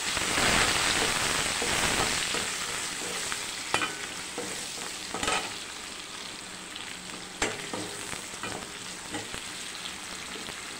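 Sliced onions and shallots frying in hot oil in a nonstick kadai, sizzling loudest for the first couple of seconds and then settling to a steadier sizzle. A metal perforated ladle stirring them knocks sharply against the pan a few times.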